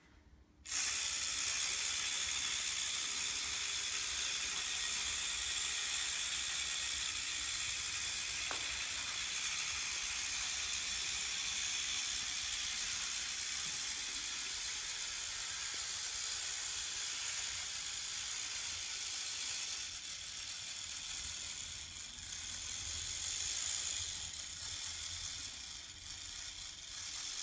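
Clockwork motor of a Meccano toy fire truck running: a steady, high whirring rattle of spring-driven gears that starts abruptly about a second in and gets a little quieter over the last several seconds.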